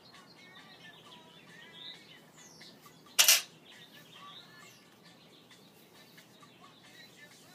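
Faint birdsong, with scattered chirps over a quiet outdoor background. About three seconds in comes one short, loud rush of noise lasting about a third of a second, the loudest thing heard.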